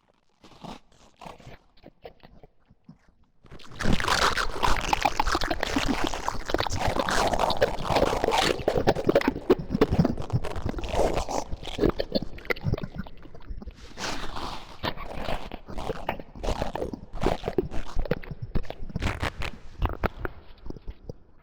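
Monster devouring prey sound effect: crunching, chewing and biting, with faint crackles at first, then loud dense crunching from about four seconds in that carries on nearly to the end.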